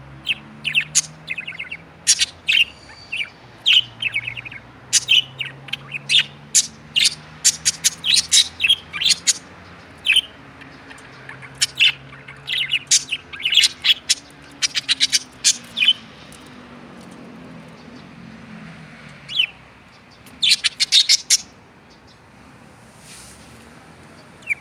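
Budgerigars chirping: quick clusters of short, sharp chirps. A lull of a few seconds falls in the middle, followed by one more dense flurry.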